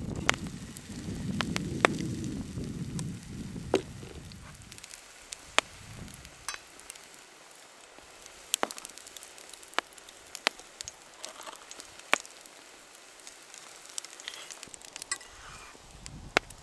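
Small wood campfire crackling with scattered sharp pops under a cast-iron frying pan, with freshly poured pancake batter sizzling softly in the pan. A low rumble fades out about five seconds in.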